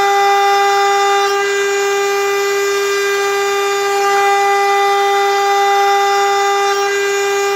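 CNC router spindle running at a steady high speed with a constant high-pitched whine, carving tamarind heartwood.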